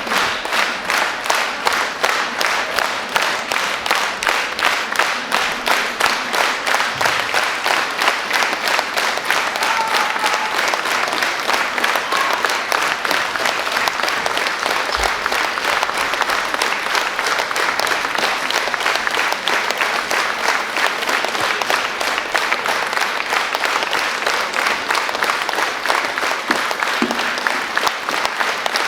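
Concert audience applauding, at first clapping together in a steady beat of about two claps a second, then going over into looser, more even applause.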